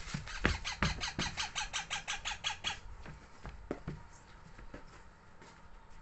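A baby parrot's rapid, squeaky begging calls as it is fed, about six a second, breaking off about three seconds in; a few soft knocks follow.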